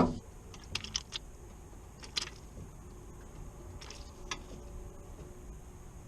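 A few light clicks and taps: four in quick succession about a second in, then single ones about two, four and four and a half seconds in, over a quiet background.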